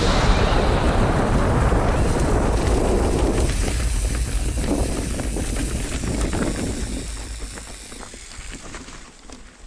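Wind rushing over the microphone with the rattle and knocking of a mountain bike riding down a rough, wet trail. It fades over the last few seconds.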